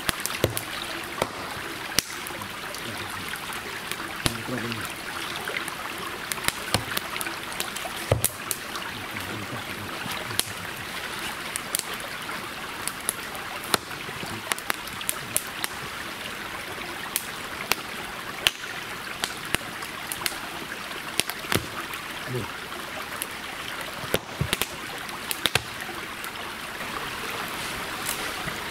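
Rain or sleet falling on the car's roof and windscreen, heard from inside the cabin: a steady hiss with many irregular sharp ticks of single drops.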